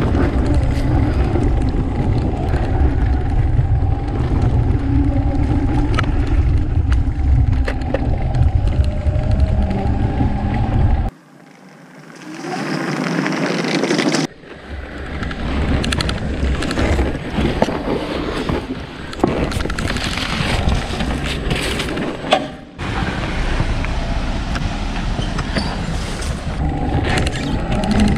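Zero FXE electric motorcycle riding a dirt trail on street tires, heard from a bike-mounted camera: steady wind rumble and tyre noise over the dirt, with a steady motor whine. About a third of the way in it drops away for a few seconds, then the bike goes past a roadside camera before the onboard sound returns.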